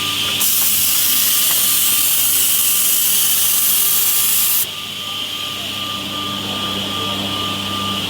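WoodTec Compact mini 300 automatic edge banding machine running with a steady hum, and a loud hiss from about half a second in that cuts off suddenly around four and a half seconds in.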